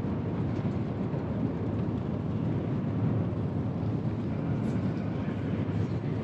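Steady low rumble of running metro escalators in the station's upper hall.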